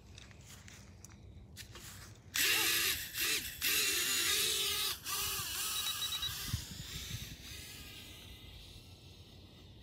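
Small toy quadcopter's motors spin up with a high buzzing whine about two and a half seconds in, its pitch wavering up and down as it lifts off, then fading as it climbs away.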